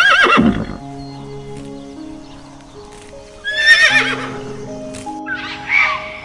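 Horse whinnying: a loud, quavering neigh right at the start and another about three and a half seconds in, over background music with held notes.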